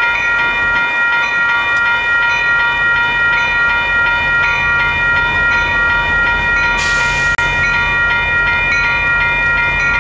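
Railroad grade-crossing warning bell ringing steadily with an even, quick pulse, over the low rumble of a train passing slowly. There is a brief hiss about seven seconds in.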